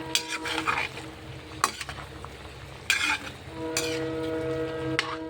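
Okra frying with spices and mustard paste in a kadai, a spatula stirring and scraping against the pan in several separate strokes over a light sizzle.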